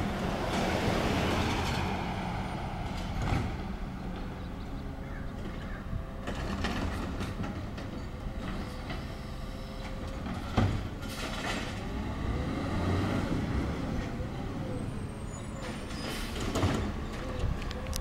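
Garbage truck running as it stops at the curb and pulls forward, a steady engine rumble under a wavering mechanical whine, with three sharp clanks spread through.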